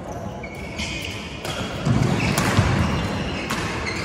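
Badminton rally: three sharp racket strikes on the shuttlecock about a second apart, with shoes squeaking on the court floor and heavy footfalls in between.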